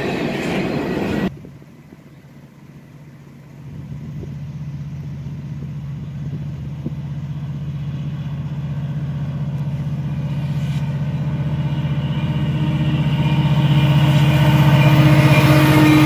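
Freight cars rumbling past for about a second, then after a sudden cut the steady drone of Canadian National diesel freight locomotives approaching, growing steadily louder as the lead units reach and pass close by near the end.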